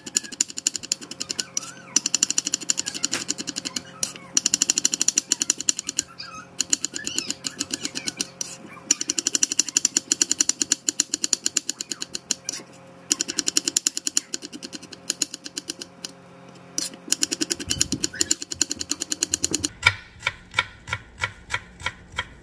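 Kitchen knife rapidly chopping through shallots onto a plastic cutting board, in fast runs of many strokes a second broken by short pauses. Near the end the strokes slow to a few separate chops.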